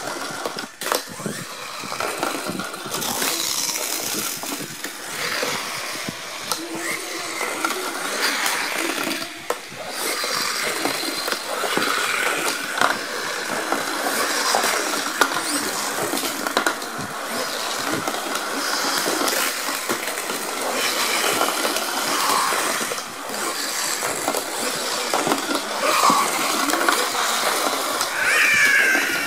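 Pull-back toy train cars' spring motors whirring as the cars run along a plastic track, their small wheels rattling on the plastic. Many sharp clacks come through as the cars knock into each other and into the track's sides.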